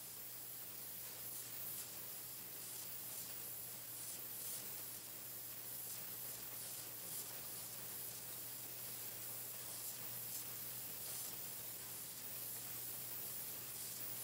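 Pencil painting machine running steadily as it feeds freshly painted pencils onto its drying conveyor: an even hiss over a low steady hum.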